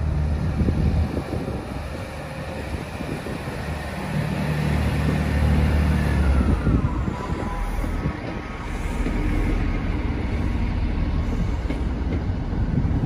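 GWR Class 165/166 Turbo diesel multiple unit pulling out of the platform, its underfloor diesel engines working hard. A whining tone falls in pitch about six to seven seconds in.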